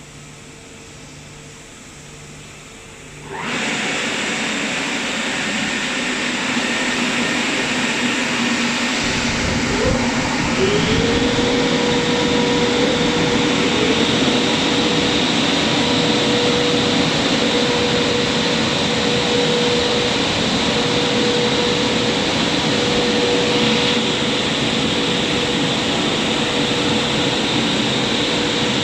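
Christ Varius gantry car wash machinery starting up suddenly about three seconds in, then running as a loud, steady whooshing drone, with a steady hum that slides into place about ten seconds in.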